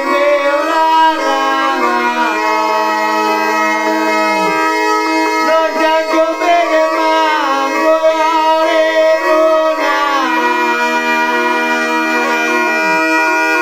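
Sicilian zampogna (ciaramedda) bagpipe playing a melody over steady drones, with a man's voice singing along in long phrases that fall away at their ends.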